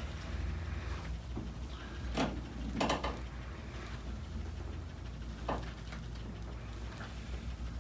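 A few brief rustles and soft knocks, the loudest about three seconds in, over a steady low hum: the patient's leg and body shifting on the padded chiropractic table as his hamstrings are stretched.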